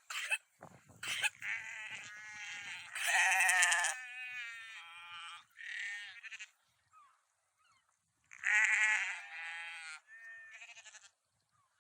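Sheep bleating again and again in a series of long, wavering bleats. The loudest come about three seconds in and again about eight and a half seconds in, with a few short sharp sounds near the start.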